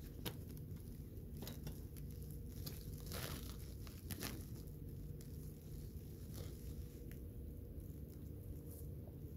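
Dry grass and leaves rustling and crackling as a person walks a bicycle through them, with a plastic bag crinkling. The crackles come irregularly and are loudest about three to four seconds in.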